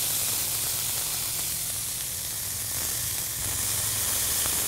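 A freshly smashed ground-beef and Parmigiano-Reggiano patty sizzling steadily on a hot flat-top griddle.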